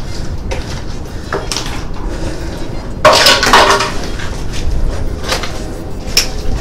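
Footsteps crunching and clinking over loose stones and broken debris on a concrete tunnel floor, with a louder crunch about three seconds in.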